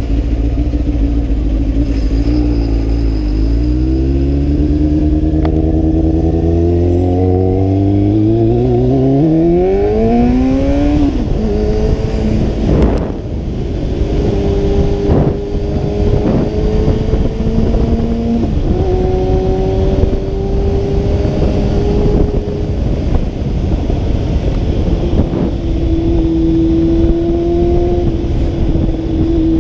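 Honda CB600F Hornet's 600 cc inline-four engine under way, heard from the bike with wind rushing past: the revs dip about three seconds in, then climb steadily for several seconds until a gear change around eleven seconds in, after which it runs at fairly steady revs with a few small steps in pitch.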